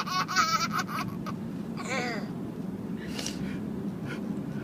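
Baby laughing in quick, rapid pulses that trail off about a second in, followed by a short vocal sound and a breathy burst.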